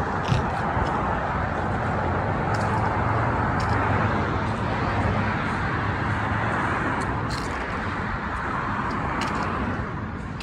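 Road traffic on a city avenue: cars driving past, a steady rush of tyres and engines. A low engine hum fades out after about seven seconds.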